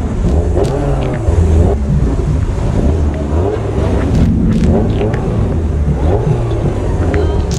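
Sports car engines running at low speed with light revs, over a steady low engine drone.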